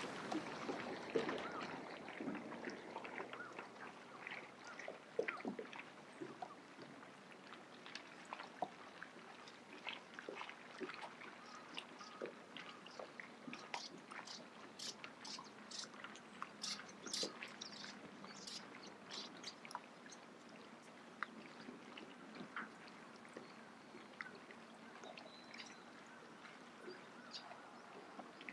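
Quiet water ambience: gentle lapping and trickling with many small, irregular splashes and clicks, a little louder in the first couple of seconds.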